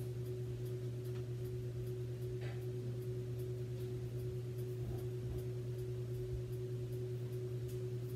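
Room tone carrying a steady low hum with a fainter, higher steady tone above it.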